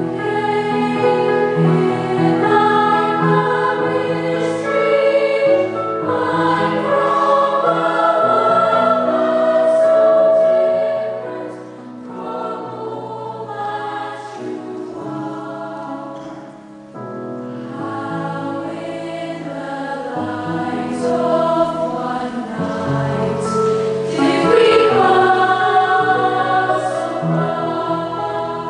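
A choir singing in harmony, with held chords; it drops to a softer passage about twelve seconds in and swells back to full voice near the end.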